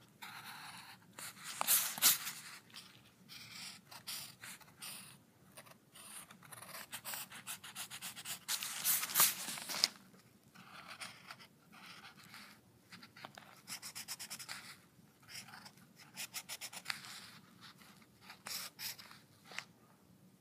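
A drawing tool scratching across paper in short strokes, with runs of quick back-and-forth shading strokes. The loudest strokes come about two seconds in and again about nine seconds in.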